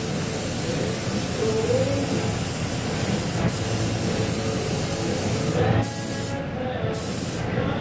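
Gravity-feed paint spray gun on compressed air, spraying paint onto a car body in a steady hiss. The hiss stops and starts a few times near the end.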